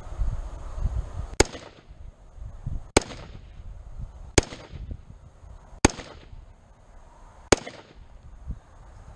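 Springfield Saint Edge AR-15 rifle firing five single shots of 5.56 ammunition at a slow, even pace, about one every second and a half. Each sharp crack is followed by a short echo.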